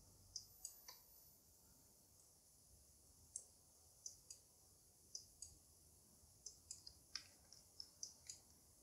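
Faint computer mouse clicks, a scattered, irregular run of short sharp clicks as settings are adjusted on screen.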